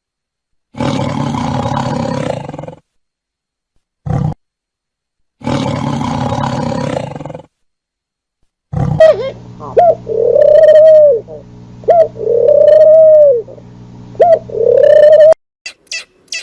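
A sequence of different animal calls with silent gaps between them. First, two harsh calls of about two seconds each with a short one between. Then a run of rising-and-falling calls, each about a second long, over a steady low hum.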